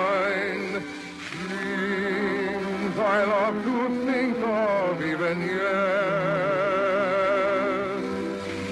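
Operetta song: a trained voice sings long notes with wide vibrato over orchestral accompaniment, in a classical operatic style.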